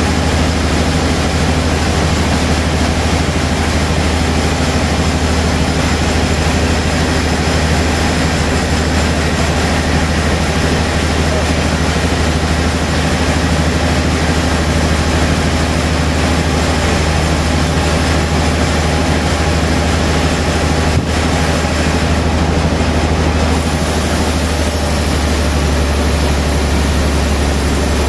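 Large band sawmill running steadily, its blade sawing a wide slab off a log on the carriage, over a strong low motor hum. A single short knock about two-thirds of the way through.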